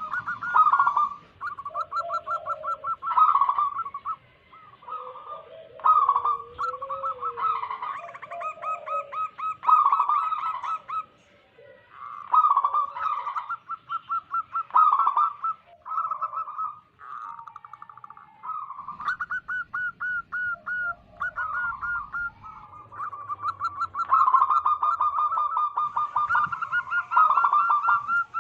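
Several zebra doves cooing over one another: fast strings of short, bouncing notes in phrases, broken by brief pauses.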